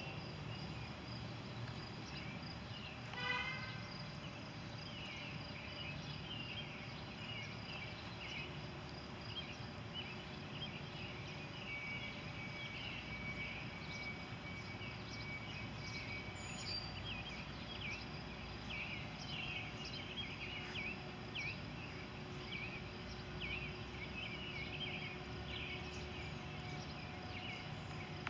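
Faint outdoor ambience: many small chirps from birds and insects over a low steady background noise, with one short pitched call about three seconds in.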